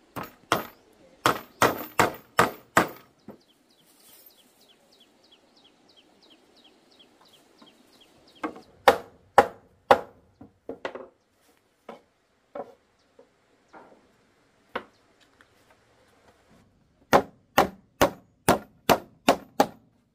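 Blows of a tool on wood, about two a second, in three runs of six to eight strikes with pauses between them. A faint, rapid, high ticking runs between the first and second runs.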